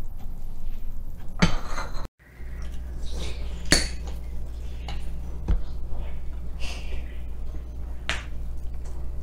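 Metal spoon clinking and scraping against a bowl while someone eats: a few separate clinks a couple of seconds apart over a steady low hum. A short clatter of utensils comes about a second and a half in.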